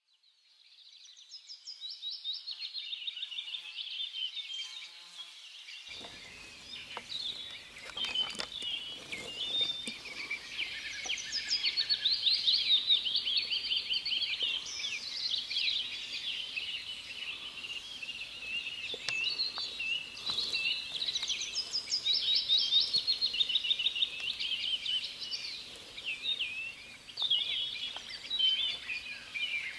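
Nature-ambience soundtrack of many high, rapid chirps and trills from birds and insects, fading in over the first two seconds; a faint low hiss joins about six seconds in.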